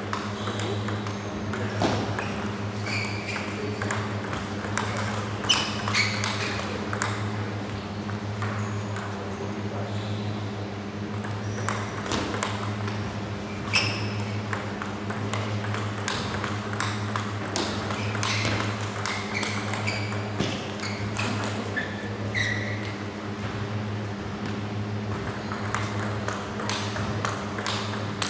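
Table tennis ball clicking on bats and table in rallies, with short breaks between points, over a steady low hum.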